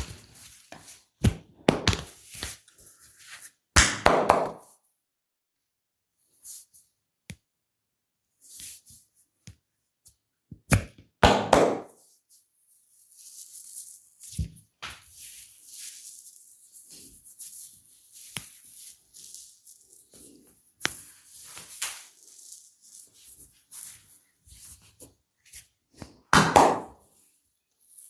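Hands working on skin during a massage: scattered sharp taps and thuds, three louder rubbing strokes, and soft rustling in between.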